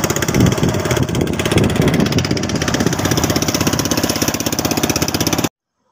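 A small outrigger fishing boat's engine running steadily underway, a fast even chugging. Water rushes along the hull and outrigger beneath it. The sound cuts off abruptly near the end.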